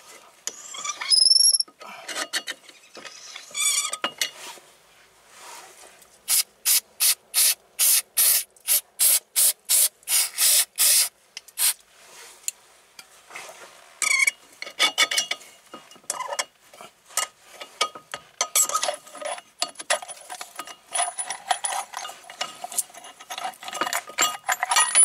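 Hand-tool work on the van's brake parts: scattered metal clinks and rattles, with a run of about a dozen short, even scraping strokes, roughly two a second, in the middle.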